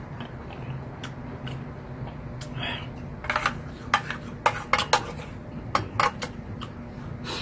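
A spoon scraping and knocking against a metal pot as ramen and rice are scooped up. There is a cluster of sharp clicks from about three seconds in until shortly past six seconds.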